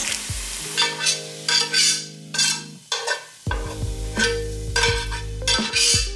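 A spoon stirring and scraping food in a sizzling frying pan, in repeated strokes about every half second.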